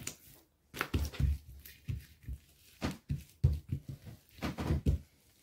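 Hands patting, pressing and spreading oiled msemen dough flat on a work surface: a run of irregular soft thumps and slaps.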